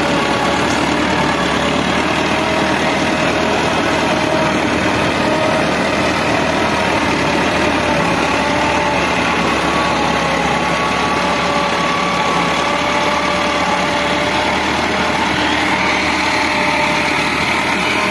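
Massey Ferguson 385 tractor's four-cylinder diesel engine running steadily under load, driving a rotavator whose tines churn through the soil.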